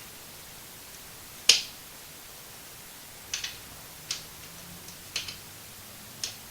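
Scattered sharp clicks and taps from hands and tools working on a motorcycle headlight assembly during reassembly, about five in all, the loudest about a second and a half in.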